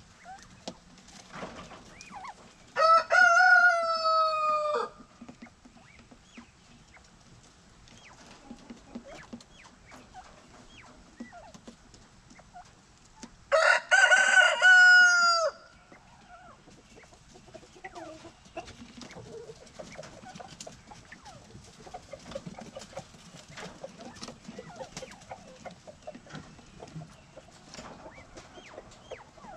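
A rooster crowing twice, about ten seconds apart, each crow lasting about two seconds and slightly falling in pitch. Faint ticks and rustles from the birds moving about are heard between the crows.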